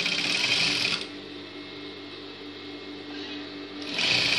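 Electric sewing machine stitching in two runs: it sews for about the first second, stops, and starts again about four seconds in, with a steady low motor hum running through the pause.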